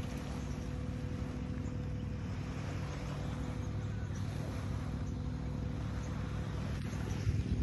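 A steady low engine hum with a faint constant tone over it, unchanging throughout.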